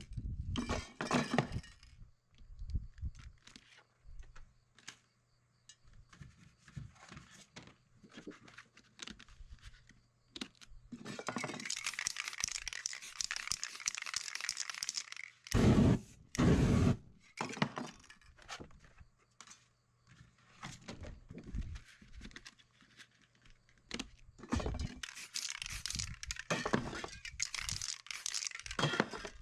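Aerosol spray paint cans hissing in two long sprays, the first about halfway through and the second near the end. Short taps and knocks come between them, and two loud thumps follow the first spray.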